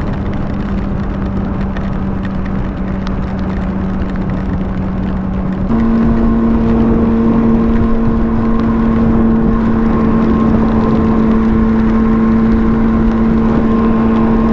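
2009 Honda CBR600RR inline-four engine running at a steady cruising speed under wind noise. About six seconds in the engine note steps up in pitch and gets louder, then holds steady again.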